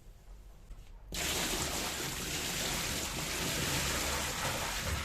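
Tap water running into a sink, turned on suddenly about a second in and then flowing steadily.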